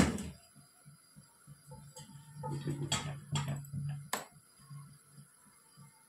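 Soft kitchen handling sounds as a ball of chapati dough is worked between the hands, with a few light taps and knocks and one sharp click about four seconds in, over a low hum that comes and goes.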